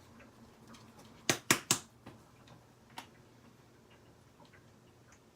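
Three quick, sharp taps in a row, then a lighter one about a second later: mustard being knocked out of its container into the pan.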